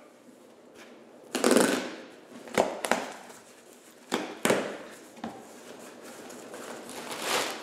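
Cardboard shipping box being opened by hand: a knife slitting the packing tape, then cardboard flaps and packing being pulled and rustled, with several sharp knocks and a swelling rustle near the end.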